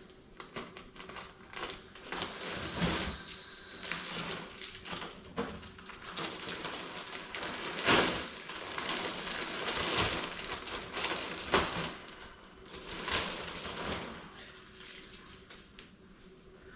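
Thick clear plastic wrapping around a vacuum-sealed foam mattress pad crinkling and rustling as the pad is lifted and handled, with a few sharper crackles.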